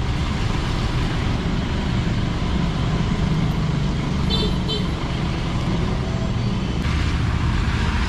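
Steady drone of road traffic, with two short high-pitched beeps a little over four seconds in.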